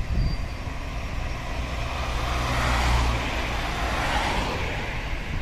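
A car driving past close by, its engine and tyre noise swelling to a peak about three seconds in and then fading.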